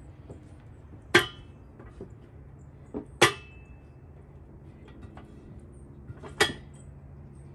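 Steel high-lift farm jack clanking three times, about two to three seconds apart, as its handle is worked and the climbing pins catch on the notched bar while it jacks up a woodshed's roof beam; the second clank rings briefly.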